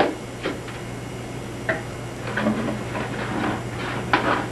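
A few light clicks and knocks, then uneven small handling noises, as a sink's P-trap drain is taken apart and handled over a bucket.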